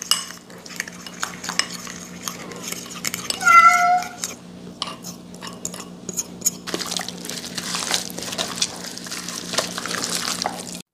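A spoon clinking and scraping against a bowl as a steak marinade is stirred, followed later by a steadier wet rubbing of the mixing. About three and a half seconds in comes a short high-pitched tone, the loudest sound here.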